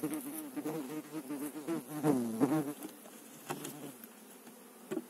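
Honeybees buzzing around an opened hive, the hum wavering and dipping in pitch as bees fly past. The buzzing fades about four seconds in, leaving a few faint clicks.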